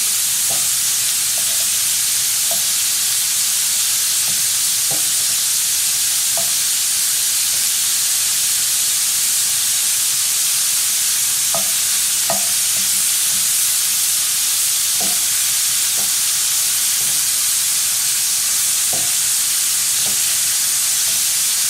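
Shrimp frying on high heat in butter and olive oil with garlic, a steady sizzle, with a dozen or so short ticks of a utensil against the pan as the shrimp are turned over.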